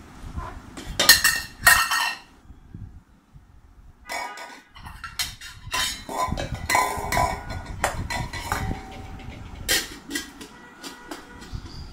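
Metal cooking pots, bowls and a lid clanking and clinking as a small child handles and knocks them together, several strikes leaving a short metallic ring. Two loud clanks come about a second in, then after a short pause a busy run of clatter with one loud strike near the end.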